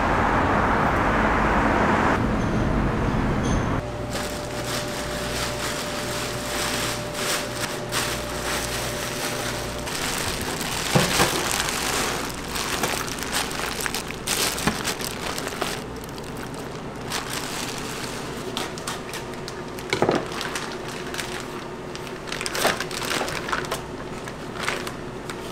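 Clear plastic bags crinkling and rustling as raw pork loins are handled in steel trays, with scattered clicks and knocks over a steady kitchen hum. The first few seconds hold a louder, even noise instead.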